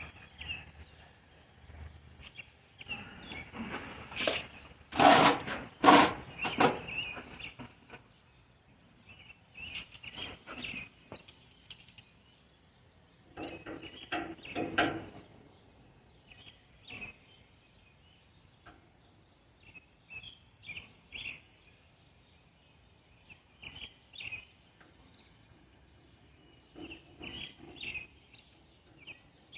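Intermittent clinks, knocks and rattles of hand tools and small metal hardware being handled, loudest in a cluster of sharp knocks about five to six seconds in.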